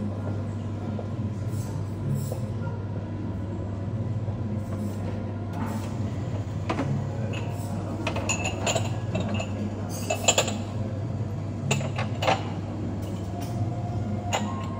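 Scattered clinks and clatter of dishes and cutlery over a steady low room hum, busiest in the second half.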